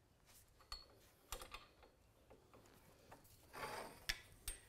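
Faint, scattered metallic clicks and taps from hands working on a garage door's torsion spring shaft and its hardware, with a brief rustle about three and a half seconds in.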